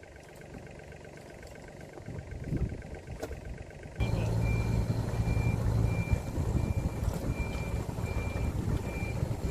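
A truck engine idling quietly, then about four seconds in it comes up loud and a reversing alarm starts, beeping steadily a little more than once a second.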